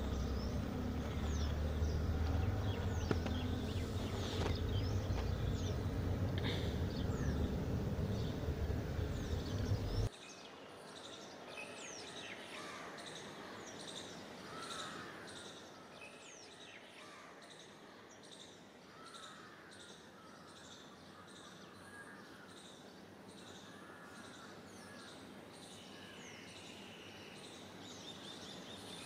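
Many birds chirping in quick, repeated short calls. For about the first ten seconds a steady low rumble lies under them, then it cuts off suddenly, leaving the chirping over a quieter background.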